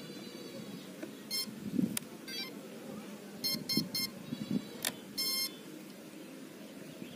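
Electronic speed controller of a brushless motor beeping at power-up: a few single beeps, then three quick beeps and a longer beep about five seconds in. These are the ESC's start-up and arming tones, played while the propeller is still stopped.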